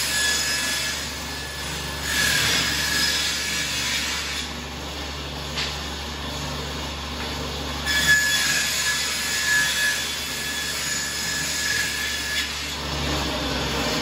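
Table saw running with a steady hum, ripping thin wooden boards in several passes. Each cut brings a high-pitched whining screech: one at the start, one about two seconds in and a longer one from about eight to twelve seconds.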